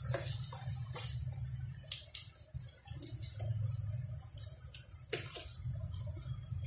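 Oil sizzling steadily in a frying pan as glutinous rice flour balls (karioka) fry, with several sharp clicks of metal tongs against the pan as pieces are lifted out.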